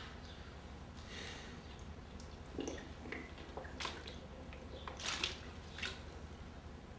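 Two people drinking from plastic water bottles: scattered faint crinkles and clicks of the thin plastic, with sips and breaths, the loudest cluster about five seconds in.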